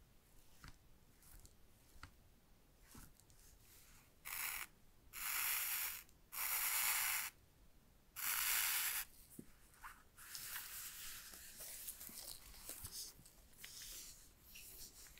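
Gloved hands handling Apple AirPods Max headphones. Four loud, brushing rubs against the fabric ear cushions come between about four and nine seconds in, then softer rustling and scraping as a cup and its cushion are worked.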